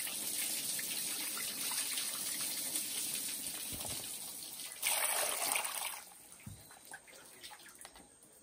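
Water sloshing and trickling as pieces of salted arowana are rubbed and rinsed by hand in a basin of lime water. About five seconds in comes a louder splash of water lasting about a second, and after that it turns much quieter.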